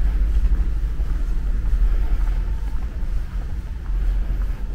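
Steady low rumble of an enclosed bus transfer platform, with bus engine noise carried through the hall.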